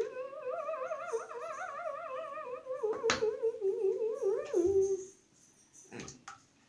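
A high voice humming a wavering note for about five seconds, the pitch warbling quickly up and down and drifting lower. A single sharp click comes about three seconds in.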